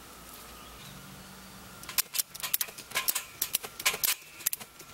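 Sharp metallic clicks and clinks in quick, irregular clusters, starting about two seconds in, from the steel hooks and tensioning hardware of a trampoline spring-test rig being handled.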